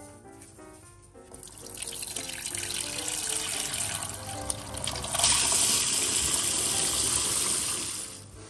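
Tap water pouring in a stream into a stainless steel saucepan of raw eggs. It builds from about a second in, gets louder and brighter about five seconds in, and stops shortly before the end.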